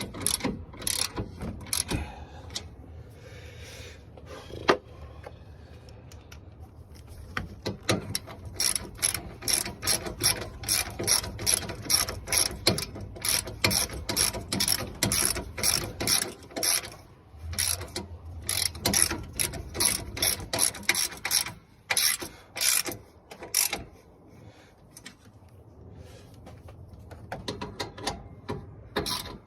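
Hand ratchet wrench clicking in runs of quick, regular strokes with short pauses, as bolts on the radiator fan assembly are turned.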